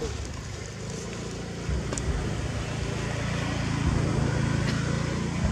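A steady low engine rumble, like a motor vehicle running, with a few faint light clicks.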